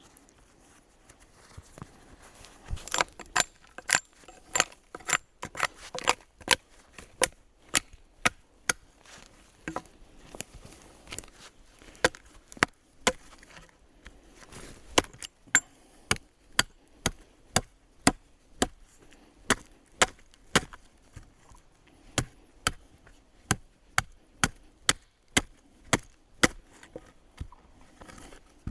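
Wood being chopped with an axe or hatchet: a long run of sharp, even strikes, about two a second, starting a few seconds in, with a short pause about halfway.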